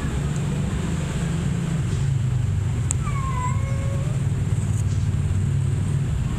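A kitten mews once, about three seconds in: a short, slightly falling call, just after a small click. A steady low rumble runs underneath.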